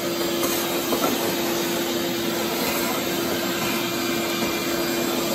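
Shop vacuum running with a steady hum, its hose nozzle sucking sawdust out of a freshly CNC-carved walnut board.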